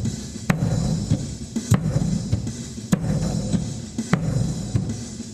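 Surdo bass drum beating the strong marcha rancho pulse over a recorded percussion loop, with a sharp accent about every second and a quarter.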